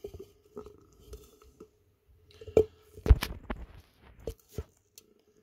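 Scattered clicks and knocks of hands working the anodizing setup: a crocodile-clip lead and the bolt against a glass Pyrex jug and a metal tray. A cluster of louder knocks comes about three seconds in, with a few lighter ones after.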